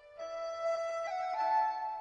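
Background music: a slow melody of long held notes that steps upward, after a brief dip right at the start.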